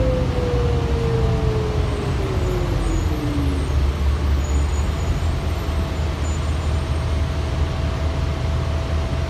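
Cabin sound of a 2004 New Flyer D60LF articulated diesel bus under way: a whine falling in pitch over the first few seconds, then a steady low engine drone with a faint steady whine above it.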